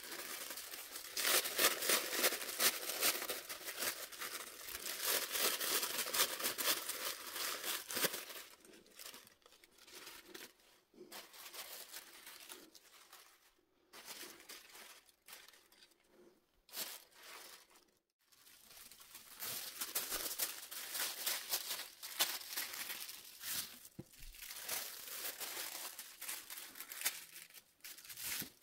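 Tissue paper crinkling and rustling in the hands. The crinkling is dense at first as the layers of a pom pom are pulled apart and fluffed, thins out and quietens for several seconds midway, then picks up again near the end.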